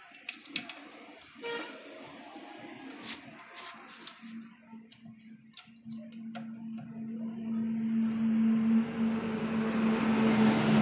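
Metal clicks and knocks of the gear-change lever and tool being worked onto a motorcycle's gear shaft, a handful of sharp taps in the first half. From about four seconds in a steady low hum comes in, and a rumble of vehicle noise grows louder toward the end.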